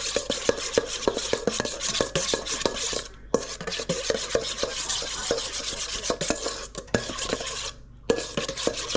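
A utensil stirring coleslaw dressing of mayonnaise, vinegar, sugar and seasoning in a bowl: rapid clinks and scrapes against the bowl, with brief pauses about three seconds in and near the end.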